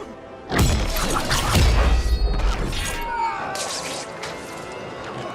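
Designed action sound effects: a sudden heavy impact with a deep boom and shattering debris about half a second in, followed by more crashing hits for over a second, with music underneath.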